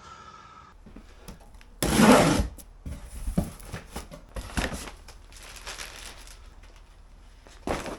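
Handling noises from gear being unpacked: one loud rustle about two seconds in, then light scattered knocks and rustles.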